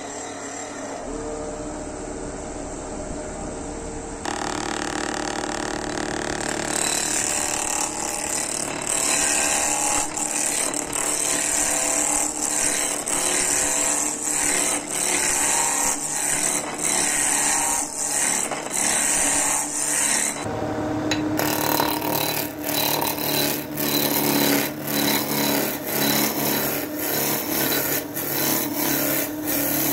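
Wood lathe running while a hand-held turning tool cuts into the spinning wooden blank, making a steady scraping hiss. In the last third the cutting comes in repeated strokes, about one or two a second.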